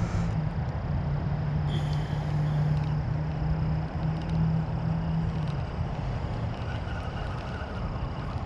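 Steady low engine hum, dying away about five and a half seconds in, over a faint hiss.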